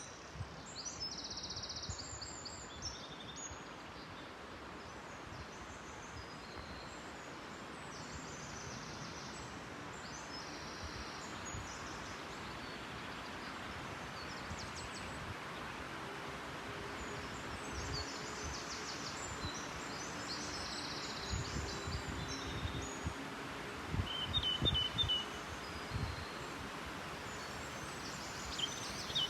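Woodland ambience: a steady rush of wind through the trees, with small birds singing short, high, repeated phrases throughout. A few low thumps come near the end.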